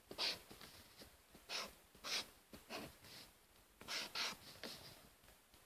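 Faint scrapes of a black felt-tip marker on paper while capital letters are written: about eight short, irregular strokes.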